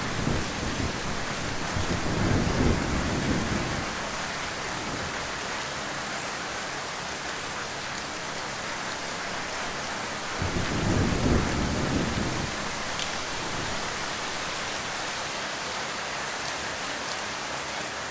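Heavy rain falling in a steady hiss, with a low rumble swelling about two seconds in and again at about eleven seconds.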